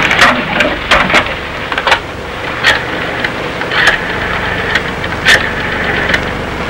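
Scattered footsteps and small knocks as a man moves about an office and picks up a desk telephone, over the steady hiss of an old television soundtrack.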